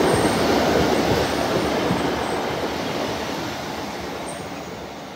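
Class 150 diesel multiple unit running past on the track below, its engine and wheel noise dying away steadily.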